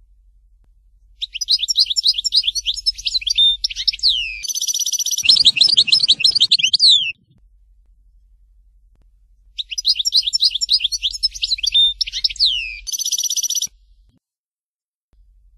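European goldfinch singing: two bouts of rapid, high twittering with slurred notes and a fast trill, the first lasting about six seconds, the second starting about ten seconds in.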